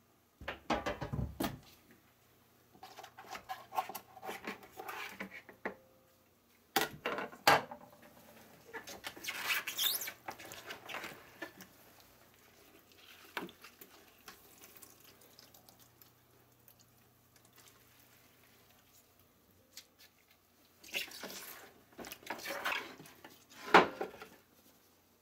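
Salted napa cabbage being squeezed by gloved hands: wet squishing and crunching of the leaves, with brine dripping. There are occasional knocks of plastic and glass containers being handled, and the sharpest knock comes near the end.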